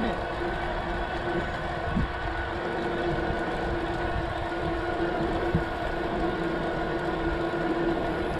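Low wind and road rumble with occasional brief thumps, under a steady drone of several fixed pitches.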